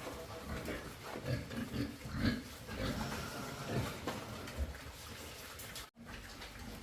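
Pigs grunting in short, irregular low grunts. The sound cuts out for an instant near the end.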